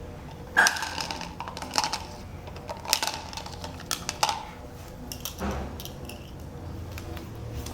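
Light clicks and clinks of plastic toy dishes: a toy spoon and pot knocking against a toy plate, a handful of sharp taps about a second apart.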